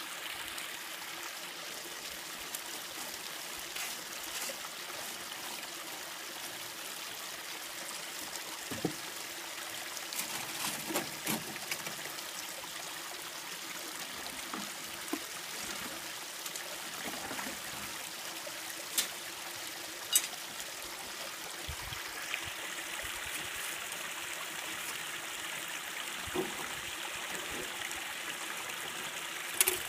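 Water running steadily down a stainless-steel sluice box over gravel, with a few brief sharp clicks and knocks of stones and metal as the sluice is handled.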